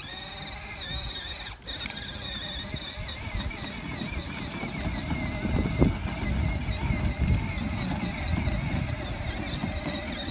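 Battery-powered ride-on toy tractor towing a loaded wagon across grass: a continuous high squeal that wavers in pitch, over a low uneven rumble, with one sharp knock a little past halfway.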